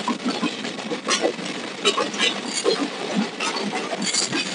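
Moving passenger train heard from an open coach door: irregular clanking and rattling of the coach and wheels on the track over a steady rushing noise.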